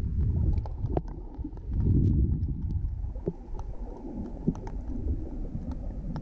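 Muffled underwater sound picked up by a camera below the surface: a low rumble of water moving against the housing, swelling twice in the first few seconds, with scattered faint clicks.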